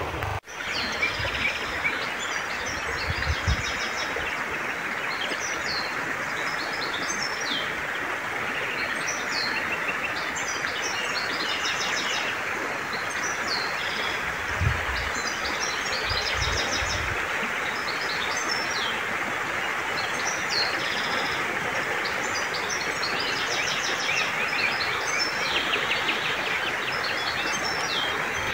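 Many songbirds chirping and singing over the steady rush of river water flowing past a pebble bank.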